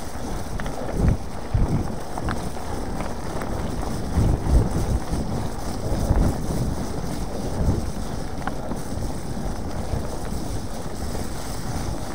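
Wind buffeting the microphone of a mountain biker's action camera while riding, over the rumble of the bike on rough ground, with irregular low thumps from bumps in the trail.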